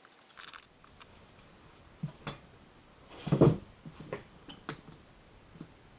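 A few separate knocks and clunks of things being handled, the loudest a longer clatter about three and a half seconds in.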